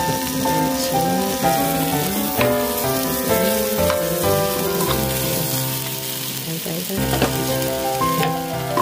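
Fish cake pieces and onion sizzling as they stir-fry in a frying pan, with a few light clicks, under background music of a melody in steady notes.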